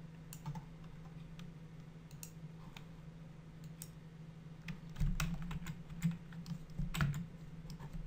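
Computer keyboard keys clicking in scattered taps over a steady low hum; the taps come thicker and louder from about five seconds in.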